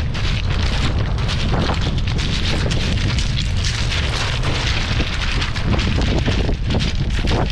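Strong wind buffeting the microphone, a constant heavy low rumble, over a steady rushing hiss of wind and breaking surf on an ocean beach.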